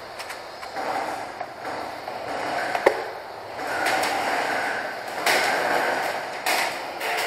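Footsteps and gear rustling as an airsoft player moves across a hard floor, in rough scuffing stretches, with one sharp click about three seconds in and a few knocks near the end.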